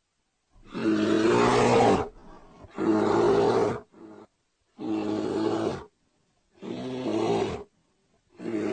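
Bear calling in five deep calls of about a second each, with short pauses between them.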